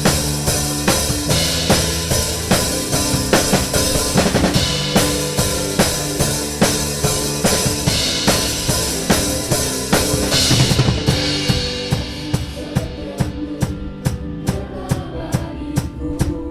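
A drum kit played in time with a band in a worship song: regular kick and snare strokes over sustained bass and chord tones. The cymbal wash drops away about eleven seconds in, leaving the drums and band.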